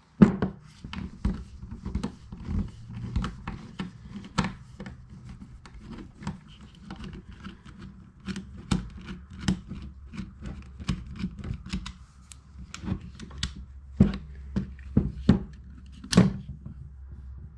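Irregular clicks and taps of hand tools and plastic parts as a small electric chainsaw is taken apart by hand, a few sharper knocks standing out near the end.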